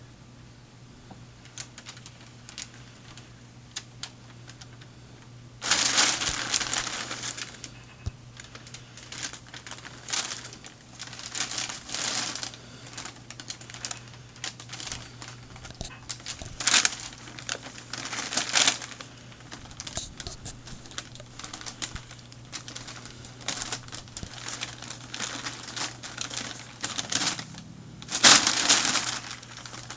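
Packing paper crinkling and rustling under a cat's paws and body as it walks over and burrows into the sheets. It comes in irregular bouts: quiet at first, a loud spell about six seconds in, on and off after that, and another loud spell near the end.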